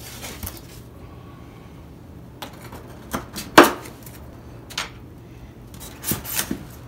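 Hands handling a foam model plane and its polystyrene packaging: scattered knocks, taps and scrapes, the loudest a sharp knock about halfway through as the wing is set down on the table, with a few more taps near the end.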